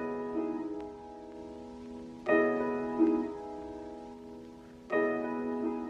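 Soft piano background music: sustained chords struck about every two and a half seconds, each slowly fading away.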